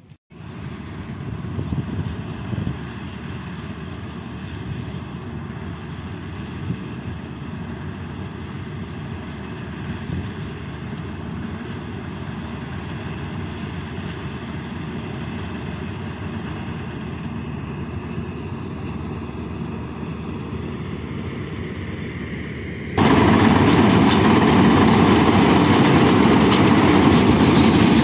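Kartar 4000 combine harvester running in a rice field: a steady engine and machinery drone. About three-quarters of the way through it jumps abruptly louder and fuller, heard close beside the cutting header as it mows the rice.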